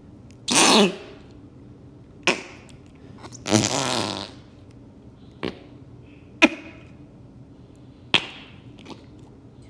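Fart putty squelching out a series of wet fart noises: two longer ones of about half a second, the first falling in pitch, and four short sharp pops.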